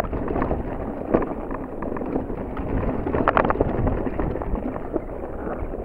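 Mountain bike rolling down a rocky dirt singletrack, heard through a rider-mounted camera: tyres crunching over stones and the bike rattling with a constant run of small knocks, mixed with wind noise on the microphone. A sharper knock comes a little past halfway.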